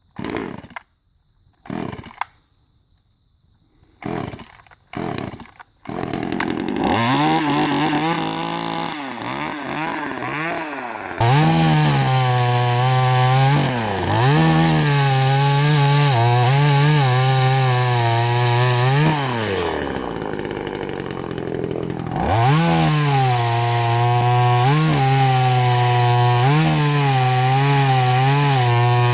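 TimberPro CS2500 25.4 cc two-stroke top-handle chainsaw being pull-started, with about five short pulls before it catches about six seconds in. It then runs with the throttle blipped up and down over and over, easing off around twenty seconds in before revving high again.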